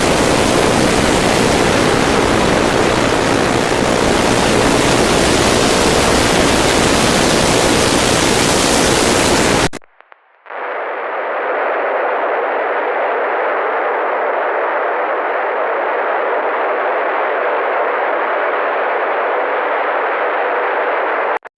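Steady hiss of static-like noise covering the whole range for about ten seconds, then a sudden cut and a thinner, band-limited hiss for the rest, ending abruptly.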